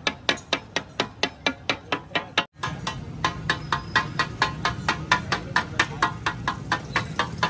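Metal spatulas striking a tawa griddle in a fast, even rhythm of about five clangs a second. About two and a half seconds in, the sound cuts out briefly, and after that a steady low hum runs under the strikes.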